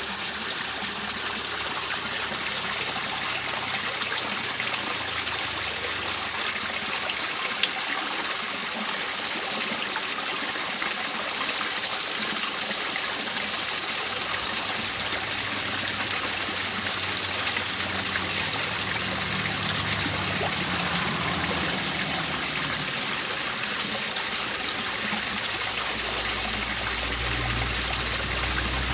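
Water pouring and splashing steadily into a fish pond, the flow driven by the pond's circulation pump. A low hum comes in near the end.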